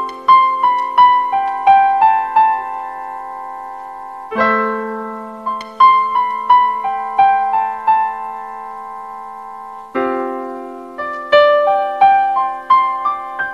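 Slow piano introduction to a song. A chord is struck about four seconds in and again about ten seconds in, and each is followed by a short falling melody of single notes.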